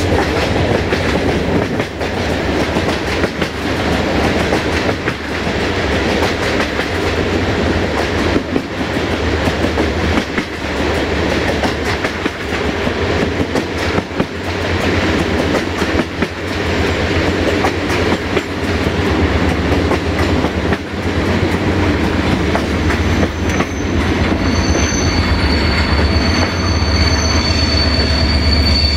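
Passenger train coaches rolling along the track, wheels clicking and clattering over the rails with a steady low hum underneath, heard from an open coach window. Over the last few seconds the wheels start a thin, high squeal.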